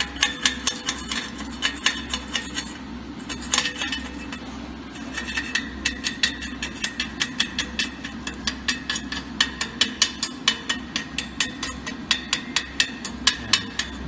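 Chipping hammer striking a fresh E6013 weld bead on steel to knock off the slag: rapid metallic taps, about four a second, with a short pause a few seconds in.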